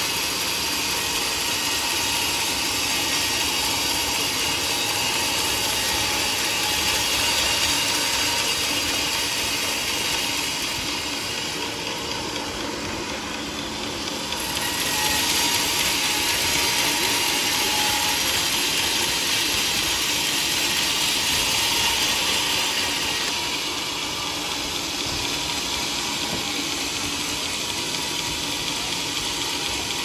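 Vertical band sawmill blade cutting lengthwise through a teak log, a steady whirring hiss of saw and motor. It drops slightly in level for a few seconds near the middle and then picks back up.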